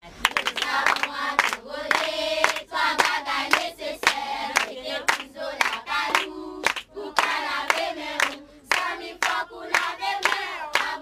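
A group of voices singing together, with hand-clapping running through the song.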